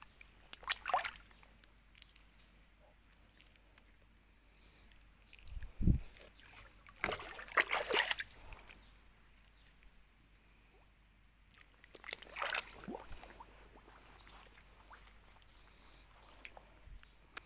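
Shallow muddy water splashing and sloshing in three short bouts as it is churned by hand, with a dull low thump just before the middle bout.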